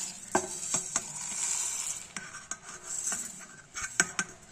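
Dry coriander seeds and dried red chillies rustling as they are stirred in a steel mixer-grinder jar, with several sharp clinks of a steel utensil against the jar.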